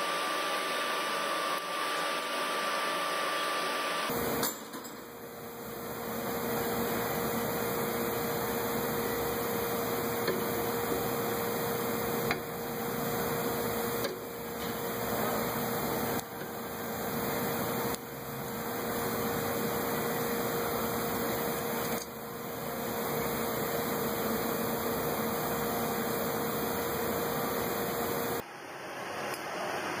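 Steady machine hum and hiss, with a faint constant tone running under it. The noise changes abruptly about four seconds in and again near the end.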